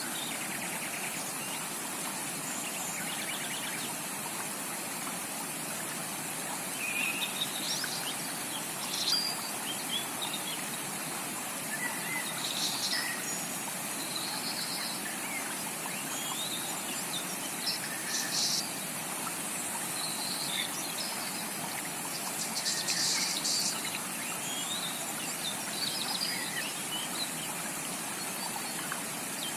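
Steady rush of a flowing rainforest stream, with tropical birds chirping and trilling intermittently over it.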